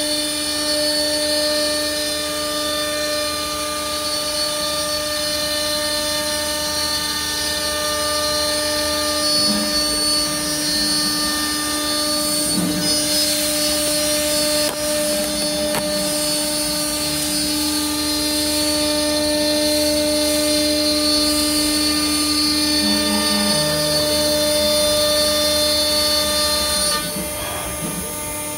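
CNC router spindle running at speed with a steady whine as its bit cuts grooves into an MDF board. The level drops and the higher overtones fall away near the end.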